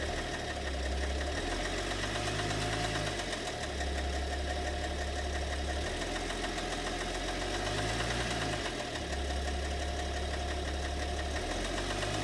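BMW M57 3.0-litre straight-six common-rail diesel idling steadily with a knock in the engine that the owner cannot identify and thinks may come from one or two cylinders.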